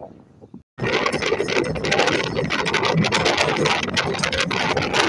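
Car driving at highway speed, heard from inside the cabin: loud, steady road and wind noise with rattling, starting abruptly about a second in.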